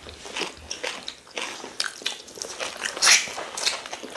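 Close-up eating sounds: chewing and wet mouth smacks from people eating rice and stew with meat, irregular short clicks with one louder sharp sound about three seconds in.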